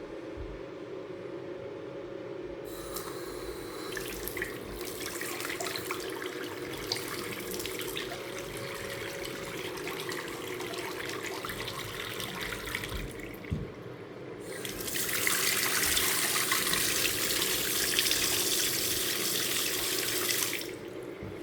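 Newly installed kitchen faucet running into the sink: the water comes on about three seconds in, eases off briefly past the middle, then runs louder and hissier for several seconds before it is shut off shortly before the end. A steady low hum runs underneath.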